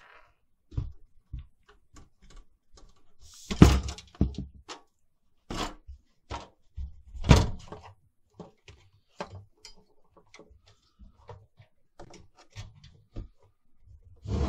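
Clicks and knocks of a Behringer mixer's circuit boards and metal chassis being handled and lifted apart, with two louder thunks about four seconds in and again about seven seconds in.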